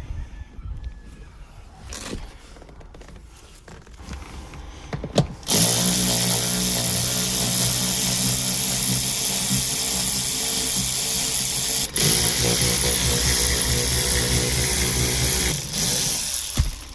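A few light clicks, then about five seconds in a power drill/driver starts and runs steadily at high speed for about eleven seconds, with one brief break near the twelve-second mark, undoing the E12 seat mounting bolts.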